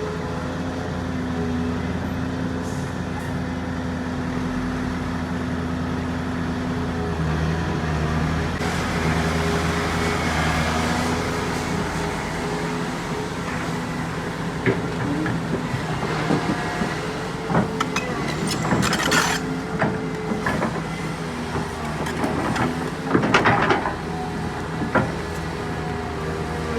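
Heavy diesel earthmoving machinery running, an excavator working with a dump truck, its engine note shifting as it works. In the second half come a series of sharp knocks and clatter, with two louder clusters.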